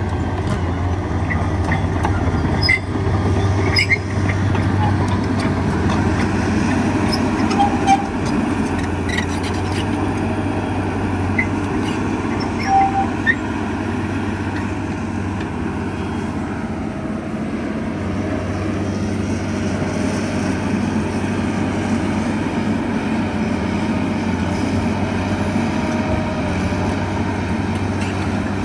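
Liebherr 954 demolition excavator's diesel engine running steadily, with a few sharp knocks and clanks in the first half. No regular breaker hammering is heard.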